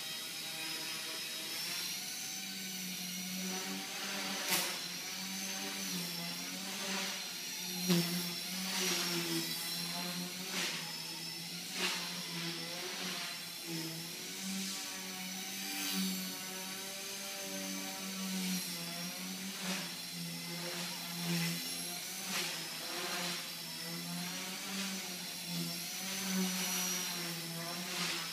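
Axe 100 SS brushless micro RC helicopter in flight: a steady buzzing rotor drone with a high motor whine, both wavering up and down in pitch as the throttle and tail motor work, with brief louder swells every second or two.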